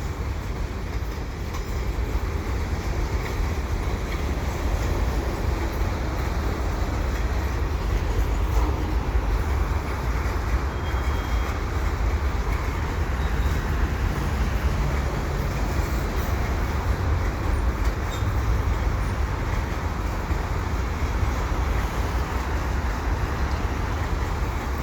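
Freight train cars rolling past steadily: a continuous, even rumble of steel wheels on the rails.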